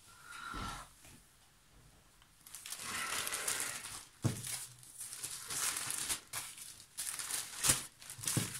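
Thin plastic bags of seed beads crinkling as they are handled, starting about two and a half seconds in, with a few sharp taps as packets are set on the table.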